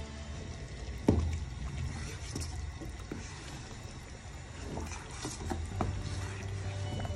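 A spoon stirring creamy sauce in a stainless steel pot: the liquid sloshes, with scattered light clinks and one sharp knock about a second in.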